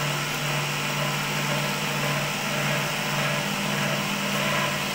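Cotton candy machine's electric motor running steadily: a constant low hum with an even whirring hiss over it.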